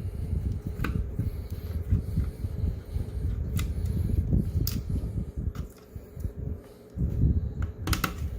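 Low, uneven fan-like rumble with a few light clicks and taps, easing briefly about six seconds in.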